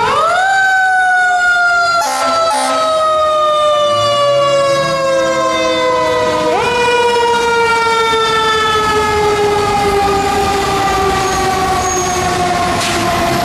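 Fire truck siren winding up quickly and then falling slowly in pitch in a long wail. About six and a half seconds in it winds up again and falls off once more. A short burst of noise comes about two seconds in.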